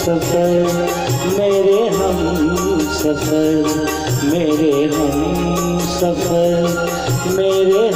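Bollywood-style film-song backing music: a wavering lead melody over a bass line that comes and goes in blocks of about two seconds.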